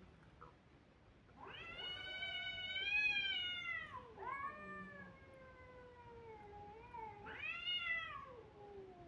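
Cats caterwauling in a face-off: drawn-out, wavering yowls that rise and fall in pitch. The loudest wail swells about three seconds in, then a lower, longer one follows, and a short sharp yowl comes near the end.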